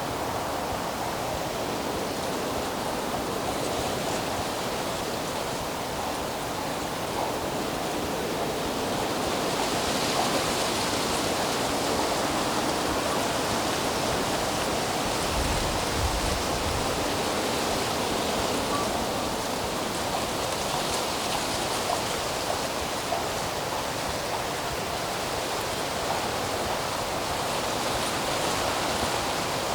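Steady rushing outdoor ambience, a little brighter and louder about ten seconds in, with a brief low rumble a few seconds later.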